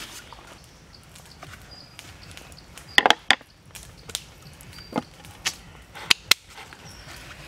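Sharp knocks and taps of a whole raw chicken being handled and set down on a plastic plate on a wooden board: a quick cluster about three seconds in, then single knocks every half second or so. Faint short high chirps sound between them.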